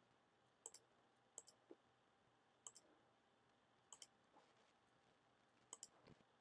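Faint computer mouse clicks, five of them spread irregularly, each a quick pair of ticks from the button pressing and releasing as line points are placed in a CAD sketch.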